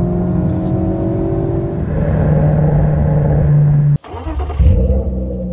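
Honda Civic Type R FK8's 2.0-litre turbocharged four-cylinder pulling hard under acceleration, its note rising steadily in pitch. About four seconds in it breaks off abruptly and a deeper rumble follows.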